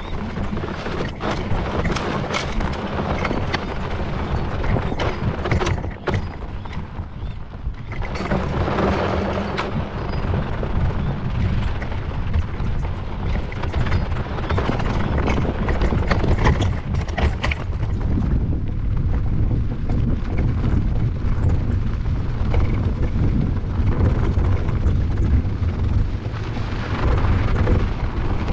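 Wind buffeting the microphone, with the rumble of a Nami Burn-E electric scooter's tyres over a dirt and gravel track and scattered clicks of stones.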